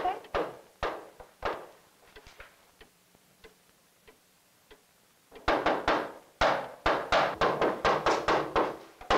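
Knocking on a wooden door, rapid sharp raps: a short spell at the start, a pause, then a louder, longer spell over the last few seconds.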